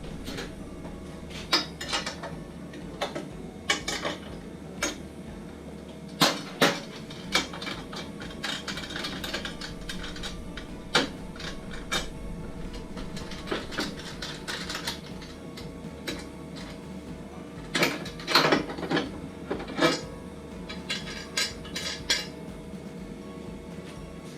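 Irregular metallic clicks, clinks and knocks of meat-slicer parts and tools being handled during disassembly, with a few louder clusters about six seconds in and again near the end, over a faint steady hum.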